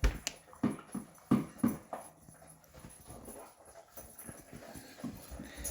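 A dog eating from its bowl. There is a quick run of chomps and knocks against the bowl in the first two seconds, then quieter chewing and licking.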